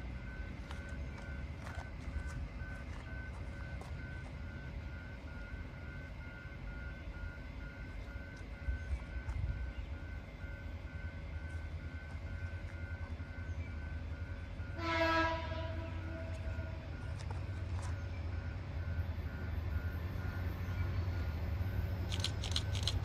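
Horn of an approaching 2900-class locomotive sounding one short blast, with its lower note held about a second longer. A low rumble from the approaching train builds towards the end, and a faint high beep repeats about twice a second throughout.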